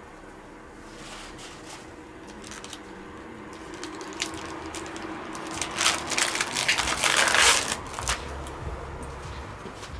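Plastic bacon package crinkling and rustling as bacon slices are pulled out of it, loudest for about two seconds past the middle, with lighter handling rustles before it. A faint steady hum runs underneath.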